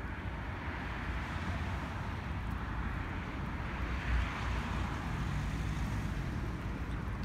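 Steady outdoor background noise: a low rumble under a hiss that swells about four seconds in and then eases.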